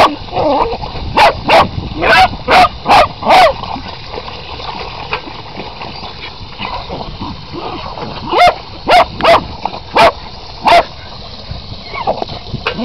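Jack Russell terrier barking in short, sharp yaps at spraying water: a quick run of about six barks at first, a pause, then five more about eight seconds in, over a steady hiss.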